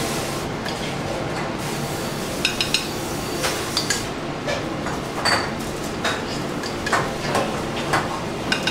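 A metal spoon clinking and scraping against a small stainless steel saucepan while puree is scooped out and spooned onto a plate: scattered light clinks every half second to a second, over a steady background hum.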